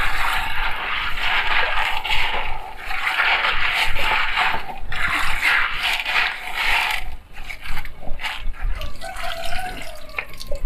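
Water running and splashing as dried peas are rinsed in a bowl, in several swells, easing off after about seven seconds.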